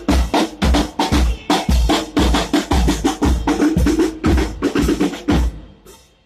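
Drum-driven music: a steady bass drum and snare beat, about two beats a second, fading out near the end.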